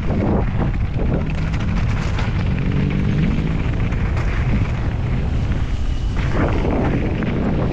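Wind buffeting a GoPro 10's microphone as a Santa Cruz mountain bike rolls down a loose gravel trail, with the tyres crunching over stones and the bike rattling on the bumps in a steady stream of clicks and knocks.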